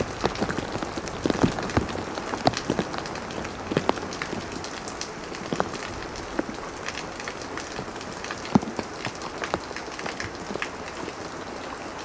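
A downpour of rain falling steadily, with many loud single drops ticking irregularly on nearby surfaces.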